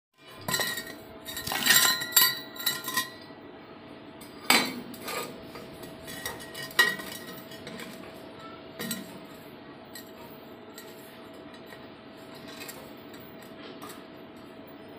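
Steel pipes clanking and clinking against each other and the floor as they are handled, with a cluster of sharp ringing knocks in the first three seconds and a few more single knocks after. Quieter rubbing follows as one pipe is worked into the end of a larger one, over a faint steady hum.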